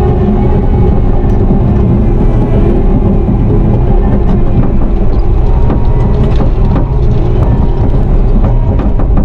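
Bobcat T650 compact track loader's diesel engine running loud and steady, heard from inside the open-mesh cab, with a few sharp clicks over it as the machine moves over gravel.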